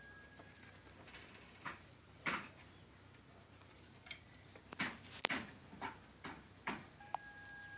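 A handful of sharp clicks and knocks, about seven, irregularly spaced, as of hard objects being handled. A faint steady whistle-like tone sounds briefly at the start and again near the end.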